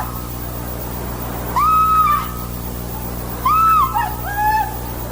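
The Wilhelm scream stock sound effect, a man's short pained yell, heard twice: about one and a half seconds in, and again about three and a half seconds in, this time trailing off in lower cries. A steady low hum lies underneath.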